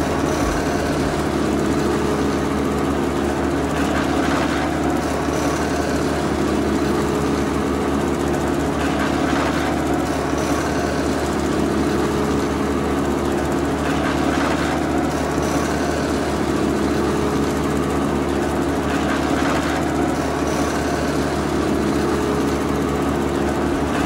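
Small electric motor driving a miniature chaff cutter, whirring steadily while green grass stalks are fed through its rollers and chopped. A rougher burst rises over the whir about every five seconds.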